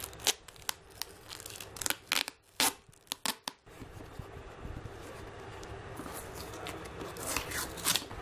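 Packing tape and cardboard being torn off a small parcel by hand: a run of short, sharp rips and crackles in the first few seconds, then rustling and a few longer tears of paper and cardboard near the end.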